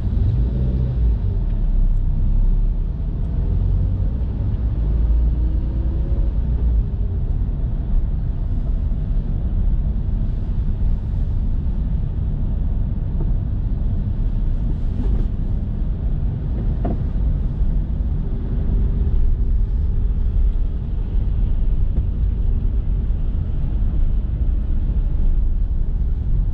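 Steady low rumble of a car driving slowly, heard from inside its cabin: its own engine and tyres, with a semi-trailer truck running in the next lane.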